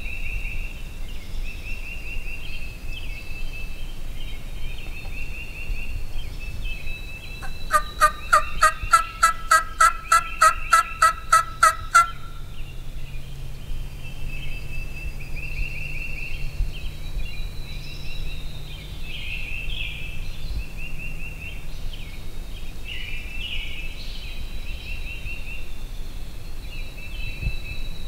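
A long run of turkey yelps: about sixteen evenly spaced notes over some four and a half seconds, starting about eight seconds in. Songbirds sing throughout.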